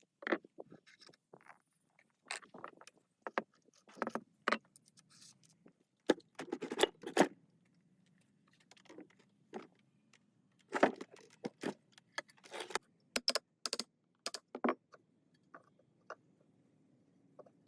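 Small metal parts and tools clinking and clattering in irregular bursts, separated by short pauses.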